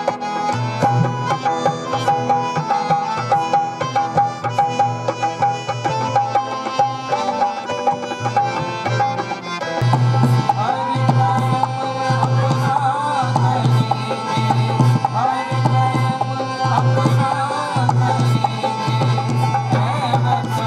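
Indian-style ensemble music: a hand drum playing a steady rhythm under held harmonium and keyboard tones. About ten seconds in the drum beat grows stronger and a gliding melody line comes in above it.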